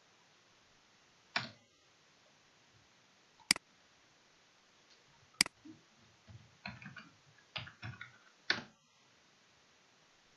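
Computer keyboard and mouse clicks: a few separate sharp clicks in the first half, then a short run of quick keystrokes that stops about three-quarters of the way in.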